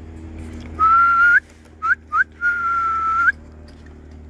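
A man whistling to call his pigeons into the loft. He gives a long steady note that turns up at its end, two short upward chirps, then another long note with an upturn.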